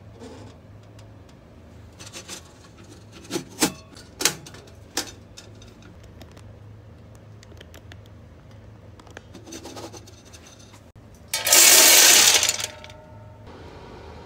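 Stainless-steel stove parts and a wire-mesh grate being handled, giving several sharp metal clinks and knocks. About eleven seconds in comes one loud harsh rasping noise lasting just over a second, over a low steady hum.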